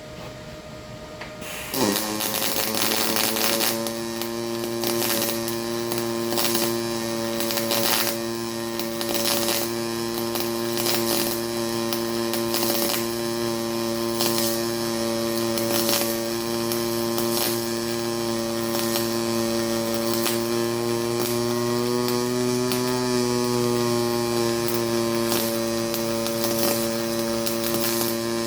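Pulse MIG welding arc from an HTP Pro Pulse 220 running .030 wire: the arc strikes about two seconds in and holds a steady, even buzz with scattered crackles. Its pitch shifts slightly about three quarters of the way through.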